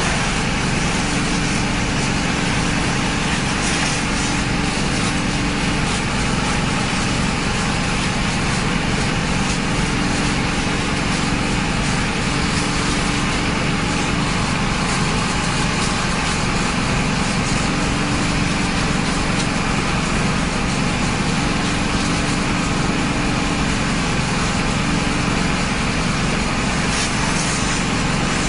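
Heavy machinery engine running steadily at a constant speed, with an even hiss over it.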